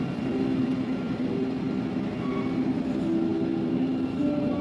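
Steady low mechanical rumble of engines running, with several held hums that shift between a few pitches.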